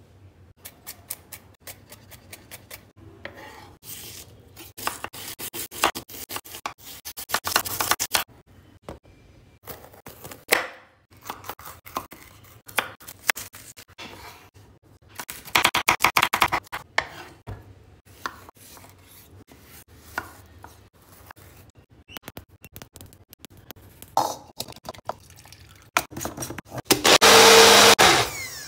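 Knife chopping vegetables on a wooden cutting board, in runs of quick sharp taps and short scraping bursts. Near the end, a small bullet-style blender's motor runs loudly for about a second and a half.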